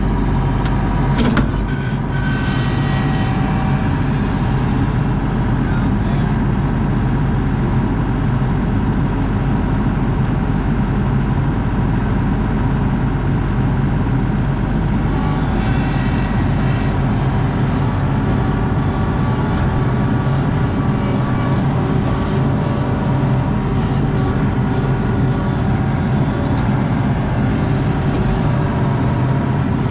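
ASV RT-40 compact track loader's diesel engine running steadily, heard from inside the cab as the loader works dirt with its bucket. A higher-pitched hiss comes and goes a few times in the second half.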